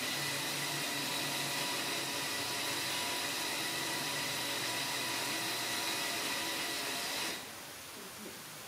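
Steady whirring hiss of a small motor with a faint high whine, starting suddenly and cutting off about seven seconds in.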